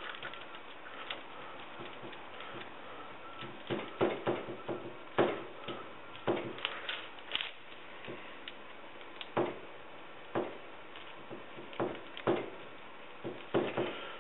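A brush stippling resin into wet fiberglass mat in a mold: irregular dabs and taps, a dozen or so, loudest about four to five seconds in.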